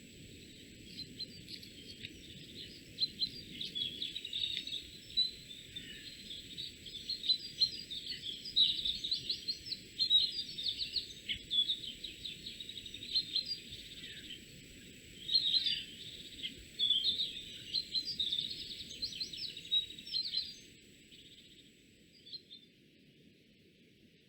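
Small songbirds chirping and twittering in quick, dense runs of calls, dying away near the end. A faint steady high-pitched tone sounds underneath and stops shortly before the end.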